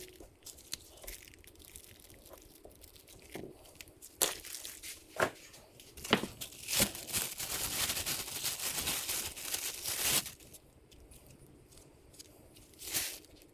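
Handling noises while pistons and pins are weighed and sorted: on-and-off rustling and crinkling, like wrapping or a shop rag being handled, with scattered light knocks and clicks of parts being set down, and a longer stretch of rustling in the middle.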